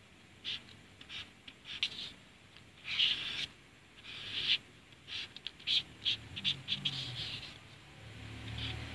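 Marker pen squeaking on a whiteboard in many short, irregular strokes.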